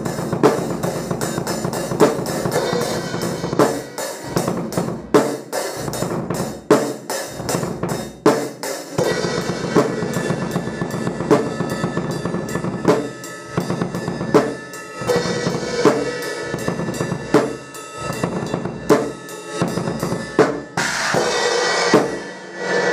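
Acoustic drum kit played with sticks: rapid snare and tom strokes over the bass drum, with regular louder accents. Near the end comes a sustained bright crash.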